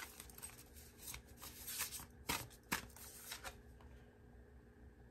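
Oracle deck cards being shuffled by hand: a faint run of quick card clicks and flicks that stops about three and a half seconds in.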